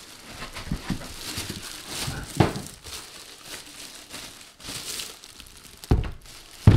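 Clear plastic protective bag crinkling and rustling as it is pulled off a PC case, with a few dull thumps, the loudest near the end.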